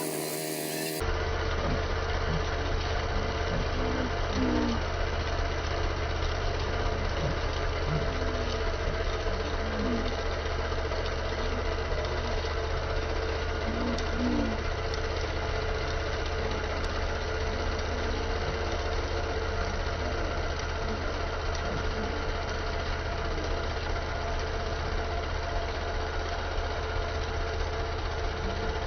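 Rice transplanter's small engine running steadily.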